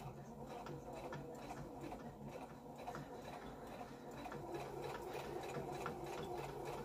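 Domestic electric sewing machine stitching a seam through fabric: a steady motor hum under a quick, even run of needle strokes.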